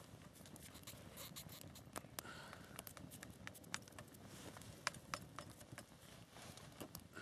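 Small twigs burning in a portable wood-burning camp stove, crackling faintly with irregular pops and ticks.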